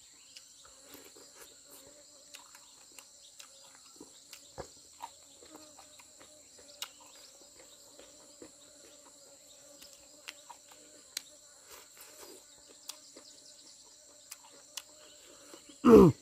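Steady chorus of crickets and other insects, with scattered small clicks and taps from eating. Near the end comes one brief, loud sound that falls in pitch.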